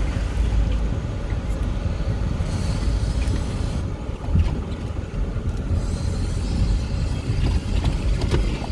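Vehicle travelling along a road: a steady low engine and road rumble.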